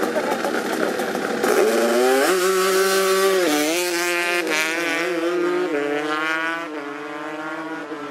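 Drag-racing motorcycle launching hard and accelerating down the strip. The engine note climbs and drops sharply at each of several quick upshifts, then fades as the bike pulls away.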